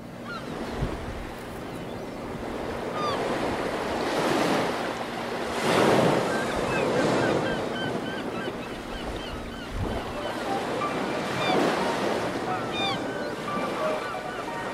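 Sea surf washing in repeated surges that swell and fall every few seconds, with wind buffeting the microphone. Short high chirps sound over it.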